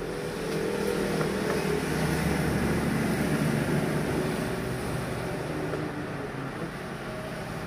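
Road traffic with a vehicle engine running, swelling between about one and four seconds in and then easing.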